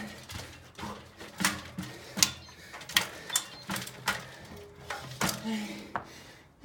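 Carbon road bike hopping up stone steps: a string of sharp knocks as the wheels and tyres land on the stone edges, about one every half second or so.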